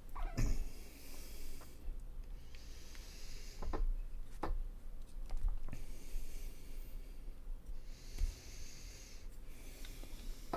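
A person breathing through the nose close to the microphone, a hissing breath every two seconds or so, with a few small taps and clicks in between.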